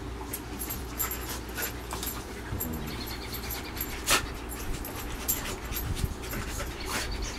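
German shepherd and boxer play-wrestling: panting and short dog vocal sounds mixed with scuffling and clicks of paws and bodies on the wooden deck, with one sharp knock about four seconds in.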